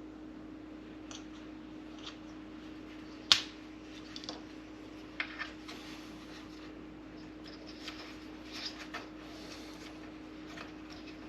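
Small clicks and taps of plastic parts being handled and fitted during reassembly of a coffee machine, with one sharp click about a third of the way in and a few softer ones later, over a steady low hum.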